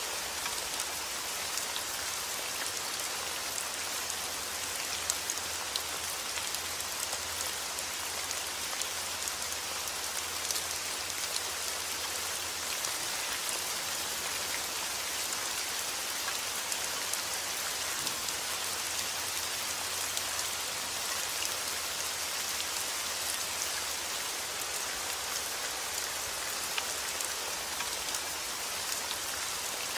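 Heavy rain falling steadily, an even hiss of rain with scattered drop ticks on hard surfaces.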